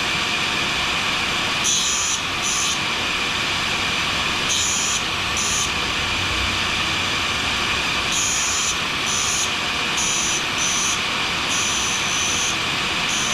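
Carbide scraper blade being ground on a spinning fine diamond wheel, touched on in short strokes: a high grinding hiss comes and goes about a dozen times. Under it runs the steady rush of a dust-extraction vacuum.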